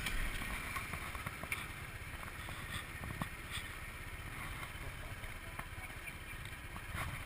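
Motor scooter idling at a standstill, a steady low rumble mixed with wind noise on the microphone and a few light clicks.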